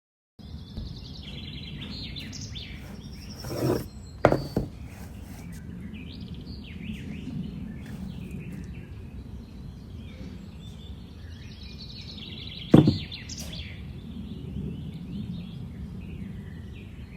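Birds chirping repeatedly over a steady low background noise, with a few sharp knocks: a cluster of three about four seconds in and a single loudest one near the end.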